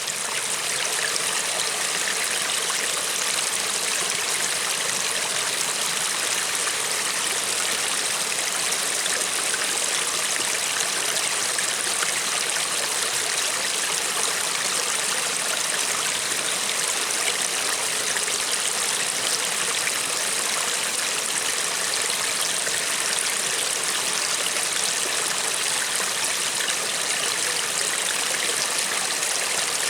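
Gentle river flowing steadily: an even, unbroken rush of water, bright and hissy with little low rumble.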